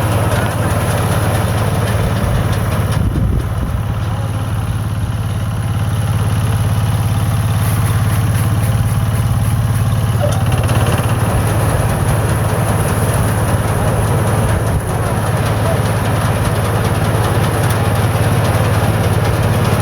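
INARI combine harvester's engine running steadily with a constant low hum.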